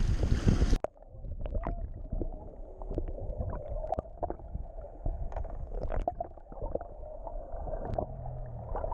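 Wind and boat noise on deck cut off suddenly within the first second. What follows is underwater sound from a submerged action camera: muffled, gurgling water with scattered clicks and pops over a steady hum, the hum likely the boat's outboard motor heard through the water.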